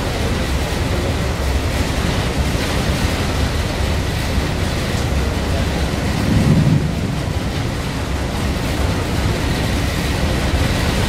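Steady wind and engine noise aboard a boat crossing the harbor in a storm, heavy in the low end, with a brief low swell about six seconds in.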